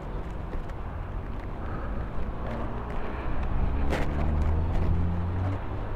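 A vehicle engine running at low revs, swelling louder for a couple of seconds past the middle, with a sharp click about four seconds in.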